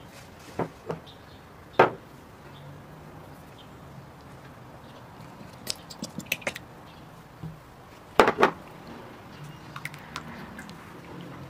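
Sharp knocks and taps of small ceramic bowls and a spatula against a wooden mixing bowl as egg, oil and yoghurt are tipped in, the loudest about two seconds in and about eight seconds in. Near the end a silicone spatula stirs the wet mix with soft scraping and small taps.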